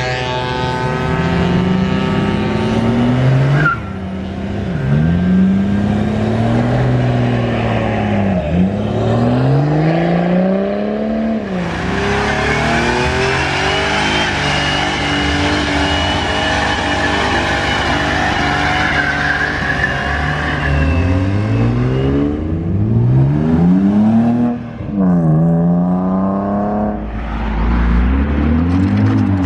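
Performance car engines revving hard and accelerating away, pitch climbing and dropping with each gear change, with tires squealing for several seconds in the middle during a burnout or drift.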